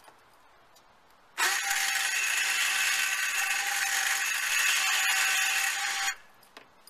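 An ATV's electric winch motor running with a steady whine for about five seconds, starting and stopping abruptly.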